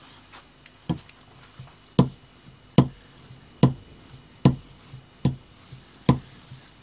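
Wood chisel stroked on a leather strop, with a sharp tap at each stroke: about seven strokes, a little under a second apart.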